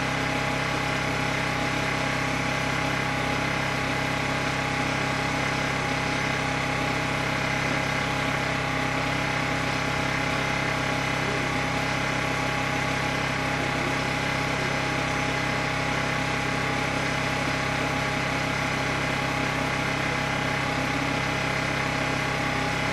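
An engine running steadily at idle: a constant hum with several steady tones and no change in speed.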